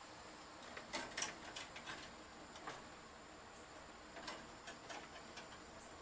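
Faint, irregular clicks and ticks of a copper wire and hands working against the metal of an electrical service panel as the ground wire is fed in and fitted, in a cluster about a second in and another around four to five seconds in.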